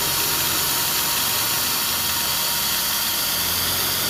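Steady background hiss over a low mechanical hum, unchanging throughout.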